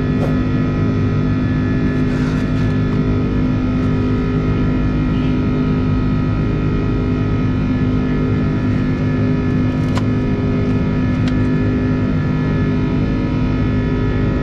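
Steady drone of an Airbus A330's jet engines heard from inside the cabin: a constant hum of several fixed tones over a low rumble, with a couple of faint clicks near the end.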